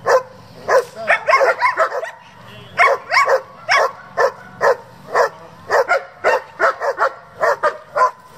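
German Shepherd Dog barking repeatedly, about two barks a second, with quicker runs of short barks about a second in and again around three seconds in.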